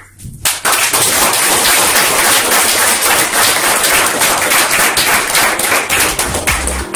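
Audience applauding: a dense patter of many hands clapping that starts about half a second in.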